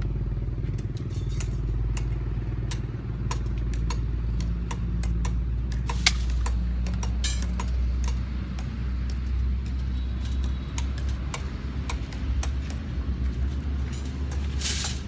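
Steel reinforcing wire clinking and rattling as it is fed through and worked with a hand-lever cutting tool: a string of sharp metallic clicks and taps. Under them runs a steady low engine drone.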